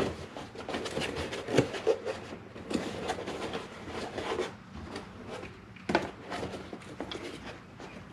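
Handling noise from oscilloscope current clamps and coiled probe leads being moved about in a hard plastic carry case: irregular clicks, knocks and rubbing, with sharper knocks about one and a half seconds in and again about six seconds in.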